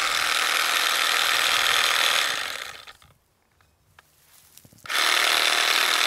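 Milwaukee cordless mini chainsaw running as it cuts through fir limbs, an even high whir in two runs: it stops about two and a half seconds in and starts again near the end.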